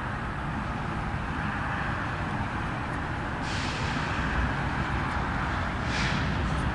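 CSX diesel locomotives approaching, a steady rumble growing slowly louder, with bursts of hissing in the second half.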